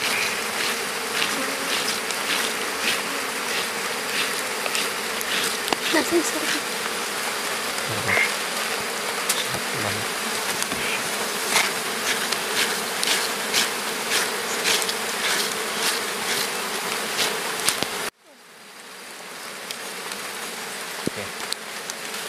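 A mass of honeybees buzzing steadily over their opened comb, with scattered clicks and crackles of the comb being handled. The buzzing cuts off abruptly about eighteen seconds in, leaving a quieter hiss.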